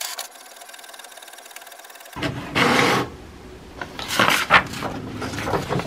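HP Smart Tank 675 inkjet printer printing a page: a steady mechanical whir from the paper-feed and carriage motors, then louder surges of the mechanism from about two seconds in as the sheet is fed out.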